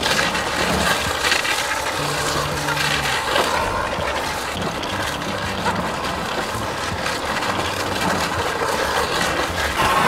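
Car driving slowly along a snow-covered road while towing a sled: the engine running under steady tyre and road noise.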